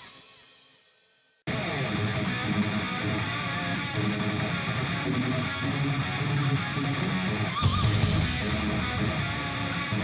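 Rock music with electric guitar: one track fades out at the start, a short gap of near silence, then another guitar-driven track starts abruptly about a second and a half in.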